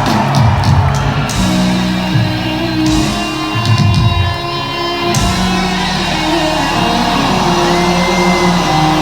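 Live rock band playing through a concert hall PA: amplified guitar with held notes, and drum hits in the first second or so and again around three to four seconds in.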